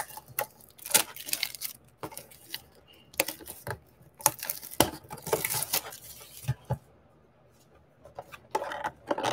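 Plastic shrink wrap being torn and peeled off a cardboard trading-card blaster box: irregular crinkling and crackling with sharp clicks and taps from handling the box, a longer rustle about five seconds in and a short pause near the end.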